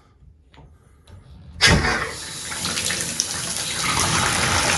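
Pfister single-handle tub/shower faucet turned on to test its newly replaced cartridge. After a couple of faint clicks, water gushes out suddenly about one and a half seconds in and then runs steadily.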